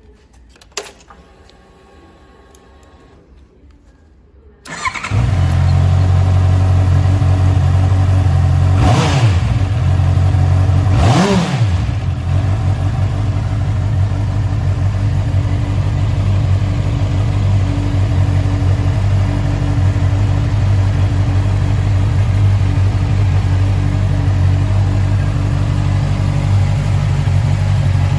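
Honda CBR650R inline-four motorcycle engine started after a single click. It catches about five seconds in and idles, is blipped twice around nine and eleven seconds with the revs rising and falling each time, then settles back to a steady idle.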